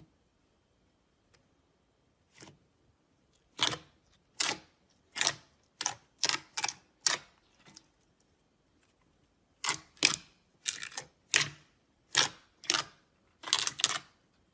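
Slime being squeezed and pressed by hand, giving a series of short popping clicks, in two runs with a pause of about a second and a half between them.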